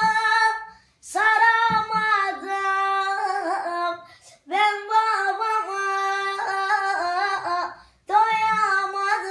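A boy singing a Turkish folk song (türkü) unaccompanied, with long held, ornamented notes in three phrases separated by short breaths.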